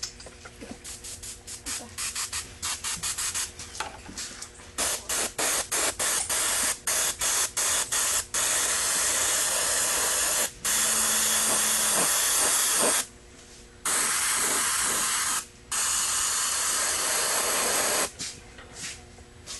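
Airbrush spraying orange paint for a coat on a clear RC car body. It starts with many short, quick bursts of hiss, then gives longer steady sprays of two to three seconds each with brief pauses, and stops about a second and a half before the end.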